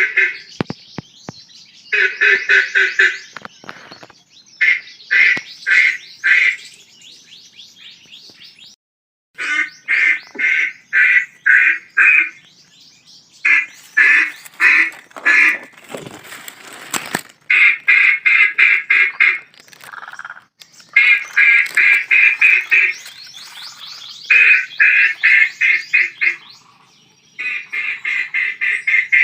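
Ducks quacking in fast runs of several quacks each, repeated with short pauses. A brief rustling noise comes about sixteen seconds in.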